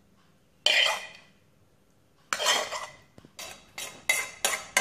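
A metal spoon scraping and knocking against a stainless steel mixing bowl as chopped asparagus is scraped out of it. A couple of separate scrapes are followed, near the end, by a quick run of clinks at about three a second.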